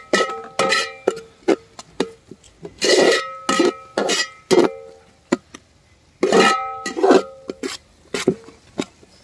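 Perforated metal ladle knocking and scraping against a wide metal pot while stirring sautéing onions, tomatoes and green chillies. Each knock makes the pot ring briefly at the same few metallic tones, with scraping swishes in between.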